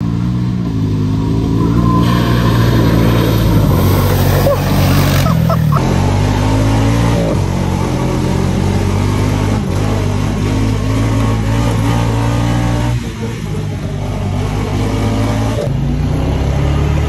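Off-road buggy's engine running under way, its pitch stepping up and down several times as the throttle and load change, with a brief dip in level about thirteen seconds in.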